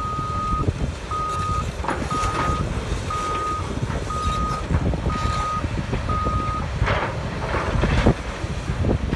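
Backup alarm of heavy demolition equipment beeping, seven steady single-pitch beeps about one a second, which stop about two-thirds of the way through, over a low machinery rumble. A couple of thuds follow near the end.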